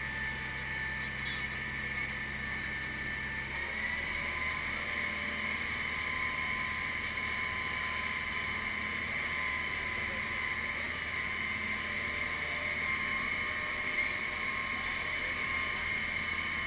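Amphibious truck's engine running steadily while afloat, with water and wind noise from the moving vehicle. About four seconds in, a low hum drops out and the engine's pitch steps slightly higher.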